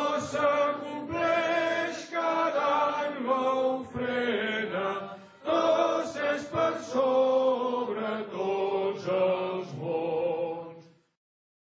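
Voices singing a chant-like hymn together in short phrases separated by brief pauses. The singing stops abruptly near the end.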